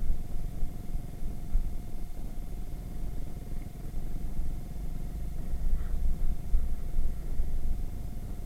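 Irbis Virago 110cc moped's engine running on the move, under choppy low wind rumble on an action-camera microphone. This engine is due for a full rebuild.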